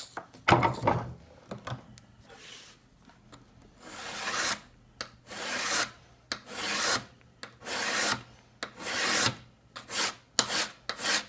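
A file draw filing the edge of a steel cabinet scraper held in a vise: long rasping strokes about a second apart, coming quicker near the end. A couple of knocks come first, before the strokes start.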